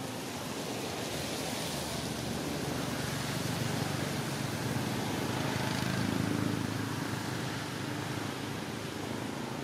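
Steady rain falling on forest leaves, with a low rumble that swells toward the middle and then eases.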